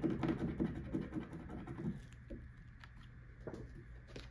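A coin scratching the coating off a paper scratch-off card in quick, rapid strokes, stopping about two seconds in; a few light taps follow.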